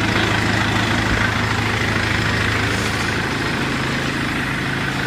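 Cummins 2.8-litre turbo diesel crate engine idling steadily on its first run after installation. It sounds pretty good, with even revs.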